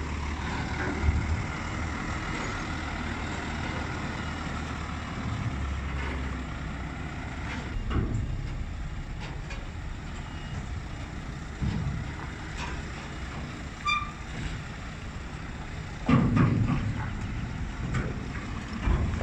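Heavy truck's diesel engine running as the long low-loader trailer moves, with a few clunks and rattles from the rig, the loudest cluster near the end. A single short beep sounds about two-thirds of the way through.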